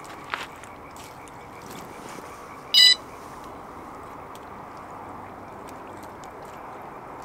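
An electronic carp bite alarm gives a single short, loud, high-pitched beep about three seconds in, over a steady background hiss.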